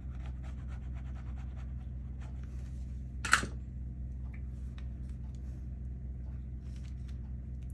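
Faint scratching and rustling of paper being handled while white glue is spread, with one sharp tap a little over three seconds in, over a steady low hum.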